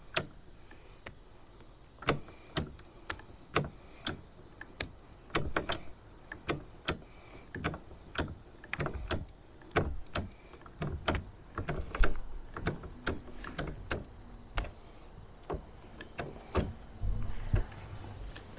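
Hand-cranked hose reel on a battery sprayer cart being wound in, its crank and reel clicking and knocking as the hose is rolled up. The clicks are irregular, about two a second, and start about two seconds in.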